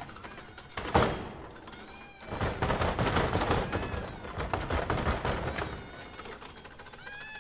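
A single sharp knock about a second in, then about three and a half seconds of dense, rapid clattering knocks, as in a concert piece for foosball table and electronic sound. Short gliding electronic tones sound faintly at the start.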